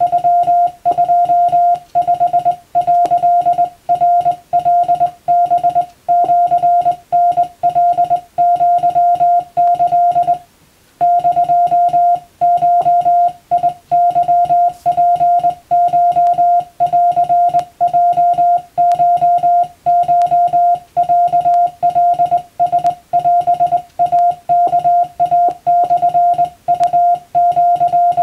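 Morse code (CW) tone keyed by hand in the dots and dashes of Japanese wabun Morse, as radiotelegraph receiving practice. One steady beep switches on and off continuously, with a single short pause about ten and a half seconds in.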